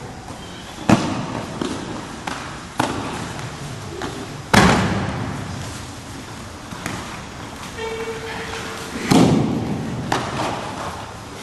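Aikido breakfalls: training partners being thrown and slamming down onto the tatami mats, a series of heavy thumps that echo through a large hall. The loudest comes about halfway through, with others about a second in, near three seconds and after nine seconds, and lighter knocks in between.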